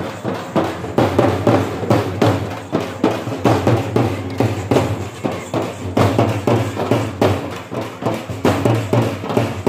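Several large frame drums (dappu) beaten with sticks in a fast, steady, driving rhythm.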